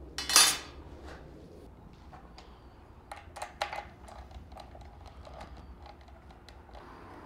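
A short, loud scrape about half a second in, then a scatter of light metal clicks and knocks as a portable metal-cutting bandsaw is handled and set down onto a steel plate over its mounting studs.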